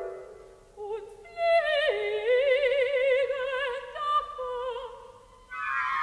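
Mezzo-soprano singing a held, slowly moving phrase with wide vibrato, coming in about a second in, over a thin orchestral accompaniment. Falling, sliding orchestral chords fade out at the start and enter again near the end.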